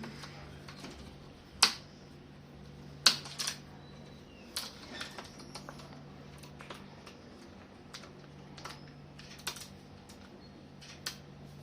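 Scattered sharp clicks and taps of hands and a tool working on a laptop's plastic case and parts during disassembly, two of them louder about a second and a half and three seconds in, over a steady low hum.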